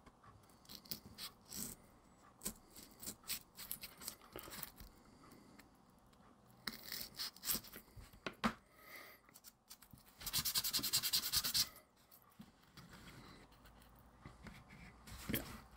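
Small handling and cutting noises from hobby tools working on miniature parts: scattered clicks, taps and scrapes, with a fast, even rasp lasting about a second and a half roughly two-thirds of the way in.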